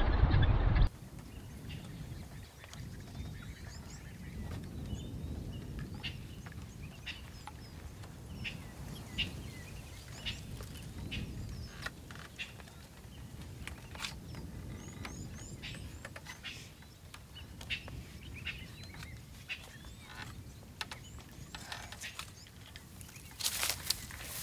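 Opens with about a second of loud noise that cuts off suddenly. Then birds chirping in short, scattered calls over a low wind rumble, and near the end footsteps crunching through dry grass and brush.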